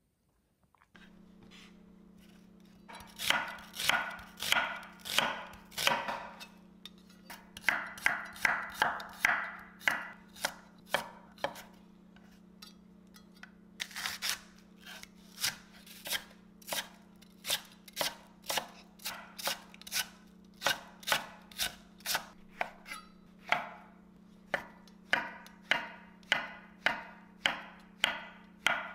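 Kitchen knife chopping on a wooden cutting board, slicing through a green onion stalk and then shiitake mushrooms in sharp, regular strokes, about two a second. A steady low hum runs underneath from about a second in.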